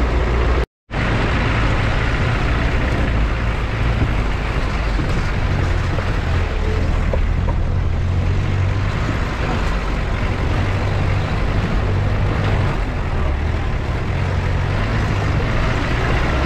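Jeep driving up a rough off-road mountain track: a steady, loud low engine rumble with track noise, broken by a momentary dropout to silence a little under a second in.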